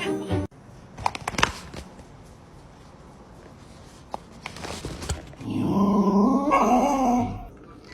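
A dog whines in one long wavering complaint lasting about two seconds, loudest in the later part, after a few sharp clicks near the start.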